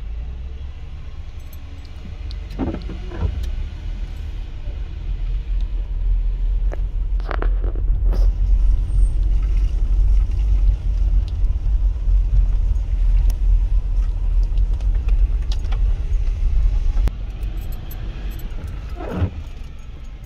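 Low road and engine rumble heard inside a moving car. It grows louder a couple of seconds in and eases off about three seconds before the end, with a few brief knocks or squeaks.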